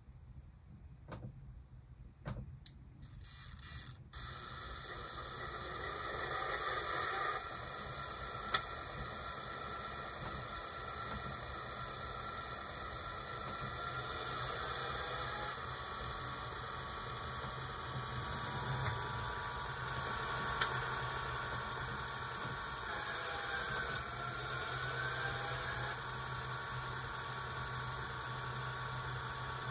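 A DCC sound decoder plays a model diesel locomotive's prime mover sound through a small speaker. After a few clicks, the engine starts about four seconds in and runs with a hissy, buzzy tone. Its level steps up a few times, and there are two short sharp pops.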